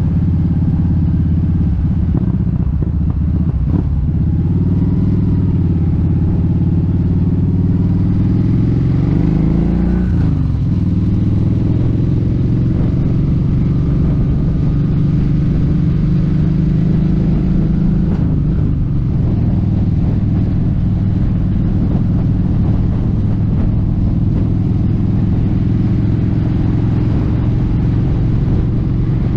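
Kawasaki Vulcan 1700 Vaquero's V-twin engine running under way, heard from the rider's seat along with road and wind noise. The engine pitch climbs and then drops back about ten seconds in, and changes again a little before twenty seconds.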